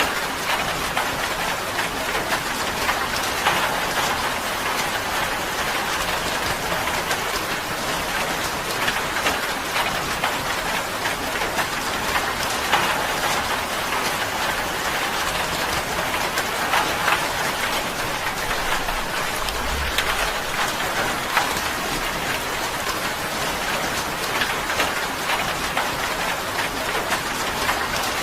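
Steady rain pattering on tin, a dense even hiss of drops with individual drop ticks standing out now and then.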